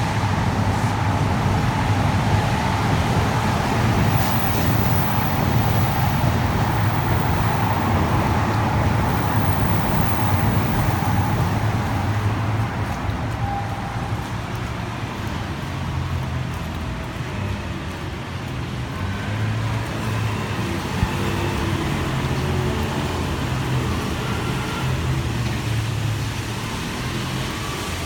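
Steady engine and road traffic noise with a low hum, and a faint steady tone in the first half.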